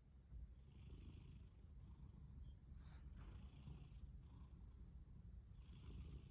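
A cat snoring softly in its sleep: a faint, low rumble throughout, with a soft hissing breath about every two and a half seconds. There is a light click near the middle.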